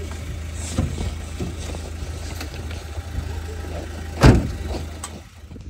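Minivan engine idling steadily, with a vehicle door shutting with a loud thud about four seconds in.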